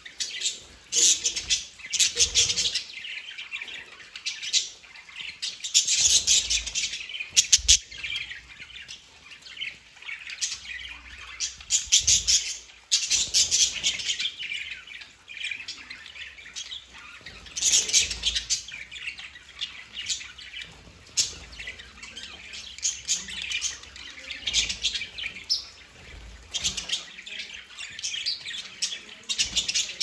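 Several budgerigars chirping and chattering in a constant stream of quick, high calls, swelling into louder bursts every few seconds.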